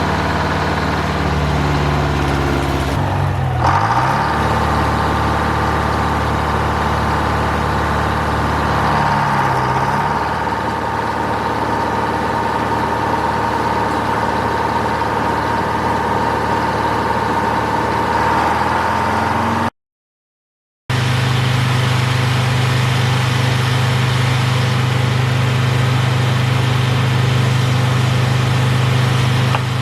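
Detroit Diesel engine powering a sawmill, running steadily, its pitch shifting a few seconds in and again about ten seconds in. A high steady whine sounds over it for much of the first twenty seconds. After a brief dropout it runs on at a steady, different pitch.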